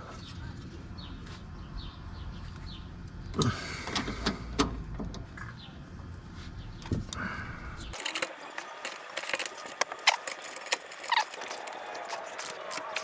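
Hand tools and metal parts clinking and rattling during work on a car's front suspension: scattered sharp metallic clicks over a low background rumble, then about eight seconds in the rumble drops away and a denser run of quick metal ticks and clinks follows.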